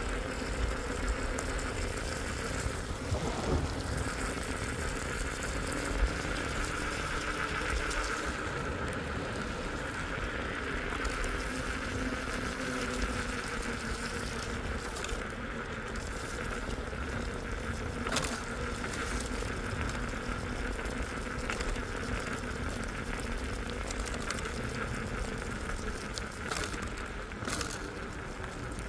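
Steady noise of a vehicle driving through rain, with rain and road noise mixed with a constant running hum and a few brief clicks.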